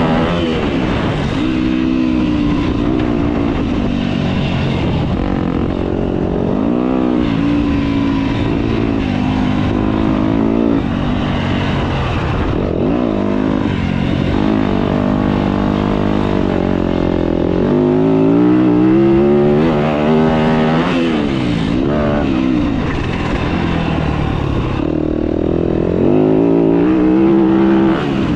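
Dirt bike engine revving hard and easing off over and over as the bike accelerates, shifts and slows through the corners and jumps of a motocross track, its pitch climbing and dropping every few seconds.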